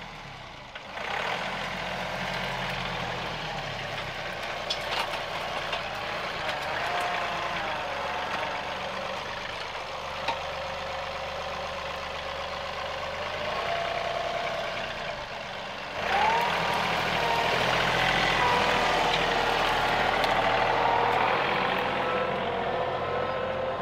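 John Deere 2038R compact tractor's three-cylinder diesel running under load, with a whine that wavers up and down in pitch as it works. About two-thirds of the way through it gets suddenly louder.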